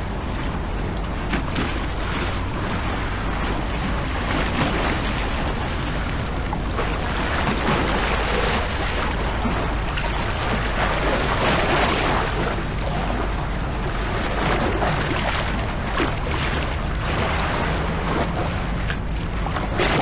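Motor tour boat's engine running with a steady low hum, with the wash of water, swelling in the middle.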